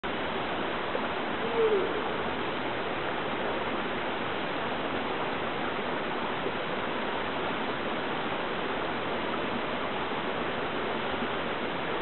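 Steady hiss of a waterfall falling as a fine, rain-like curtain of spray onto moss and rocks. About a second and a half in, one short falling call rises briefly above it.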